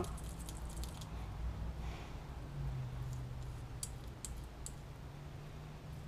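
Faint clicks and squishing of a tapered roller wheel bearing being rolled and pressed into grease in a bare palm to pack it, over a low steady hum.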